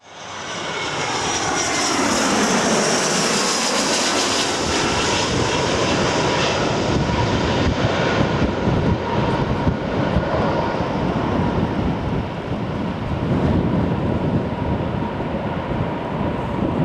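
Jet airliner engines passing close by: a whine that falls steeply in pitch over the first few seconds as the aircraft goes past. It then settles into a steady engine rumble.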